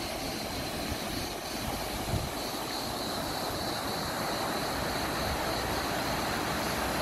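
Steady outdoor background noise: wind buffeting the microphone in low, irregular gusts over a constant hiss, with a thin steady high buzz on top.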